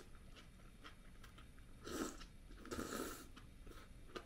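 A person eating hot pot from a bowl with chopsticks: faint chewing and small clicks, with two louder breathy mouth sounds about two and three seconds in.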